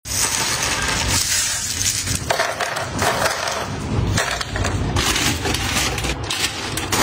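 Crisp dried dog treats clattering and scraping as they are handled, a run of short clattery, rustling kitchen sounds that change every second or so.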